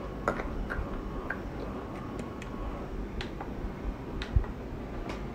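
Scattered light clicks and taps, as of small items being picked up and handled, with a soft low thump about four seconds in.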